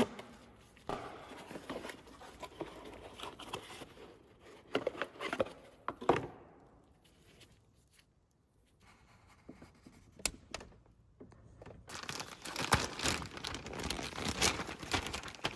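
Packaging being handled and torn open: crinkling plastic and paper with scattered clicks and knocks, quieter for a couple of seconds in the middle and busier near the end.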